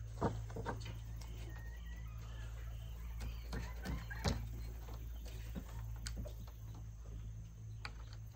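A wooden ramrod seating a patched round ball down the barrel of a .36 flintlock rifle gives a few scattered knocks and taps. The two sharpest come about a quarter second in and about four seconds in, over a steady low hum.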